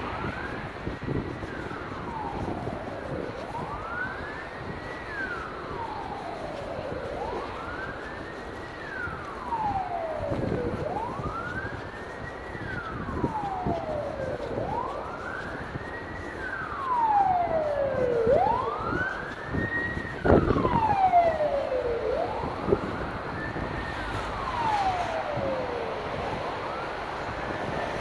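Emergency-vehicle siren on a slow wail, its pitch climbing and falling about once every four seconds, seven sweeps in all.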